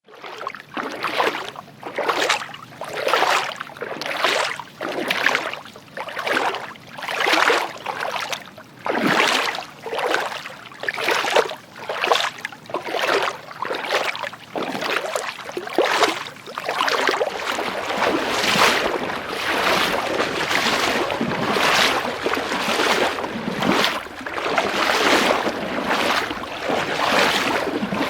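Footsteps wading through water, each step a splash about once a second. After about seventeen seconds the splashes come faster and run together into near-continuous sloshing.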